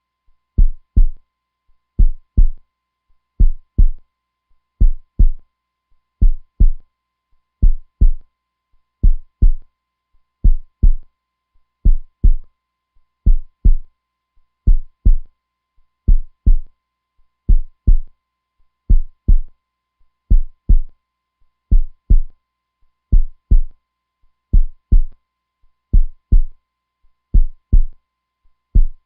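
Heartbeat sound: a slow, steady double thump (lub-dub), about one pair every second and a half, deep and low-pitched.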